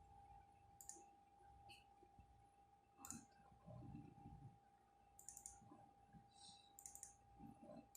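Faint computer mouse clicks, about eight short sharp clicks spread irregularly over several seconds, over a faint steady hum.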